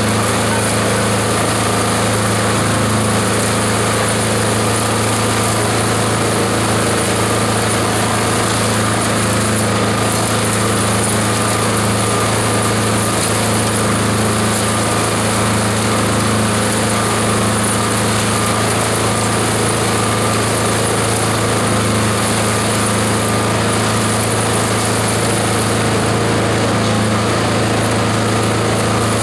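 Esteban 9-in-1 multi-purpose chopper-shredder running steadily with a constant hum, shredding green plant material fed into its hopper.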